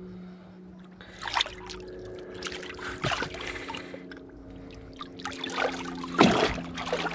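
Water splashing and trickling as a large flathead catfish is released by hand at the side of a kayak: a few irregular splashes, the loudest about six seconds in as the fish kicks away. A steady low hum runs underneath.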